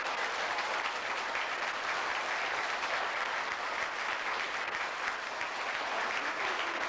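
A large audience of schoolchildren applauding, a steady, dense clapping that holds throughout.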